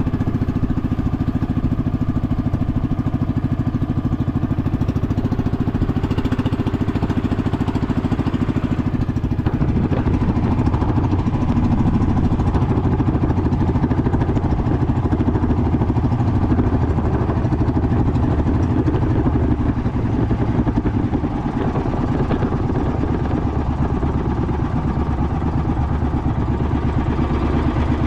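Small engine running steadily at a constant speed, with a slight change in its note about ten seconds in.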